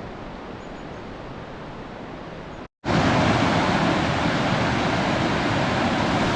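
Steady rushing of running mountain water, a stream or waterfall. It gets much louder and closer after a cut about three seconds in.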